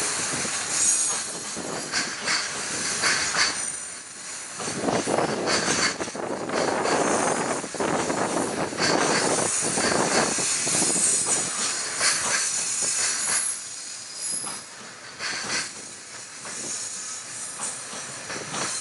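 Loaded container wagons of a freight train, Koki 100-series flat wagons carrying 31 ft containers, rolling past close by. The wheels clatter over the rail joints in a repeated knocking, with thin high-pitched wheel squeal at times. The sound is loudest in the middle and eases off over the last few seconds.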